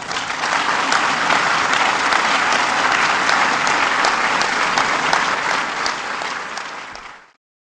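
Audience applauding, swelling in the first second, thinning out later on and then cut off suddenly near the end.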